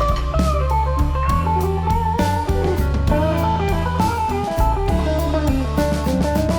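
Background music: a bluesy electric guitar melody over bass and a steady drum beat.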